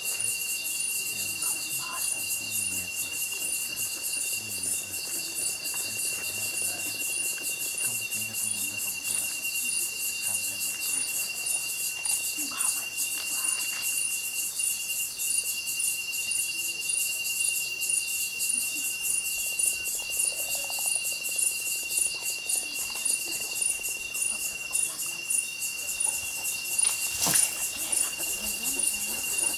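Night insect chorus: a steady high-pitched trill with dense high buzzing above it and a faint chirp repeated at an even pace. A single sharp click near the end.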